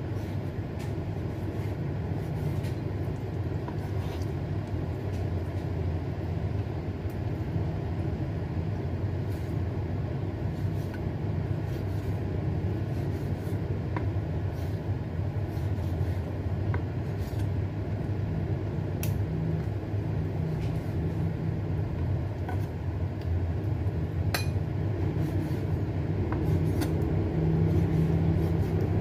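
Kitchen knife slicing raw chicken breast on a wooden cutting board, the blade giving an occasional light tap on the board, over a steady low hum.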